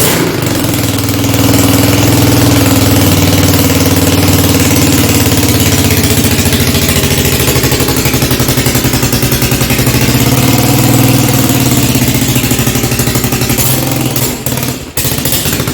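Freshly rebuilt four-wheeler (ATV) engine running steadily after a kick-start, then faltering and dying near the end. It is starved of fuel: the fuel valve was turned the wrong way.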